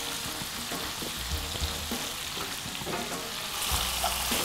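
Shrimp, tomatoes and onions in oil sizzling steadily in a wok, stirred with a wooden spoon, with faint small scrapes and taps of the spoon over the hiss.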